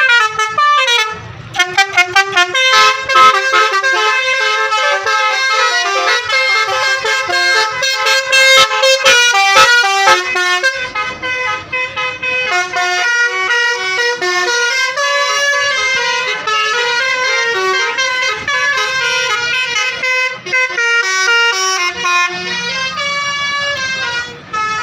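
Telolet Basuri musical bus horn playing a fast melody of short, changing horn notes, with one lower note held beneath for a stretch in the first half.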